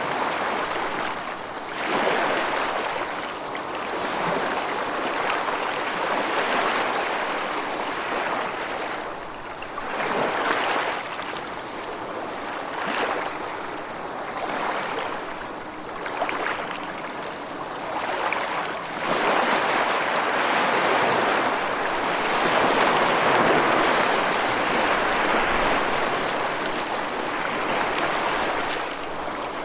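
Steady rushing water, swelling and easing every few seconds.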